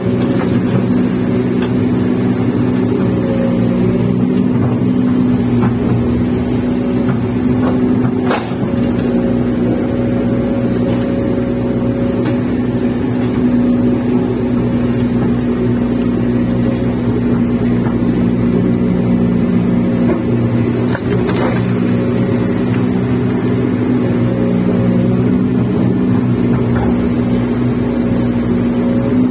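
Kobelco hydraulic excavator's diesel engine running steadily while digging, heard from inside the cab, with a few sharp knocks, one about eight seconds in and two around twenty-one seconds.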